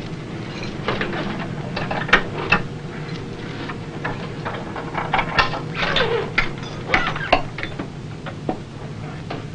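Sharp metal clicks, knocks and clatter as a gun locker is opened and a rifle is pulled from its rack, over a steady low hum.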